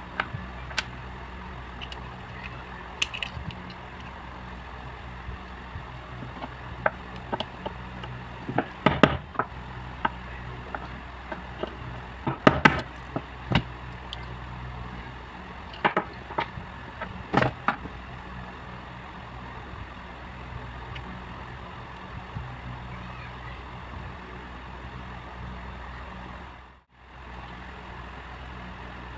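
Scattered sharp clicks and knocks over a steady low hum; the hum drops out briefly near the end.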